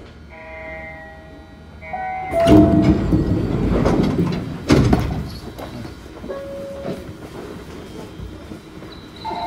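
Running sound inside an Osaka Monorail 1000-series car with field-chopper control. A few faint steady tones are followed about two seconds in by a sharp rise in running noise, with a few sharp knocks. The noise eases over the next few seconds, and a steady whine comes in near the end.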